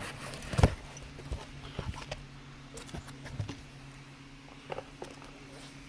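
Handling noise from unboxing a drone: a sharp knock about half a second in, then scattered light clicks and taps, over a steady low hum.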